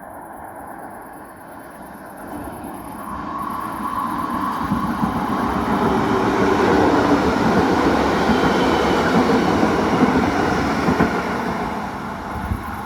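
A rail vehicle passing over newly laid track: its rolling noise grows louder over several seconds, is loudest in the middle, then fades away.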